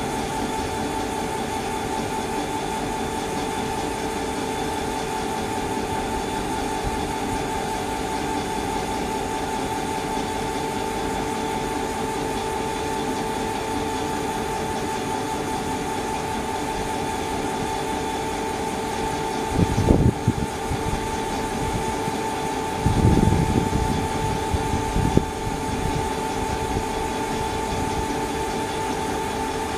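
Class 215/225 diesel-hydraulic locomotive standing and running, a steady engine drone with a constant high whine. A few low thumps come about two-thirds of the way through.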